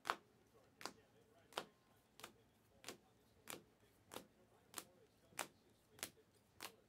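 Faint, regular clicks of Panini Prizm basketball cards being flipped one at a time through a stack in the hands, about one click every two-thirds of a second.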